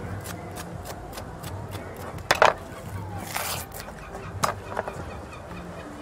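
Knife scaling and cutting a fish on a hard table: a run of short scraping strokes, with louder sharp knocks a little past two seconds and again around four and a half seconds.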